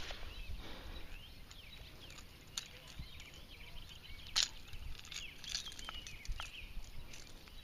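Small birds chirping and twittering over a low rumble of wind on the microphone, with a couple of sharp metallic clicks from a fish-lip grip and pliers being handled, about two and a half and four and a half seconds in.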